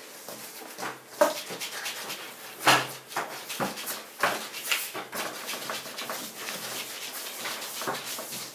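Hands rolling strands of soft bread dough back and forth on a tabletop: a soft, repeated rubbing, broken by scattered knocks and thumps, the loudest about two and a half seconds in.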